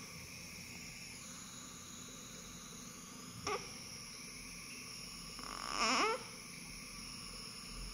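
Newborn baby giving short whimpering cries that rise in pitch: a brief one about three and a half seconds in and a longer one about six seconds in, over a steady background hiss.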